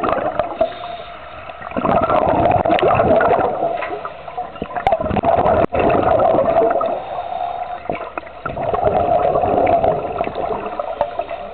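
Scuba diver's exhaled bubbles gurgling out of the regulator, heard underwater in repeated surges of two to three seconds with short lulls between breaths.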